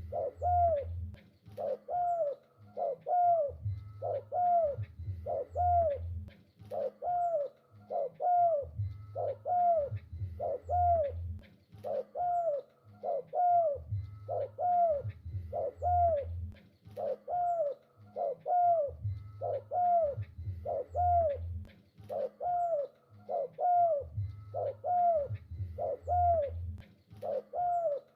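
Spotted dove (tekukur) cooing in full song: short arched coos repeated steadily, about two a second, without a pause.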